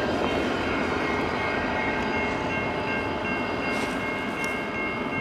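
Rumble of a freight train running past a grade crossing, heard as a steady noise without clear wheel clicks, with faint steady high tones held through most of it.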